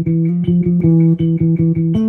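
Electric bass guitar played fingerstyle: a quick, even run of plucked notes, about five or six a second, mostly repeating one note.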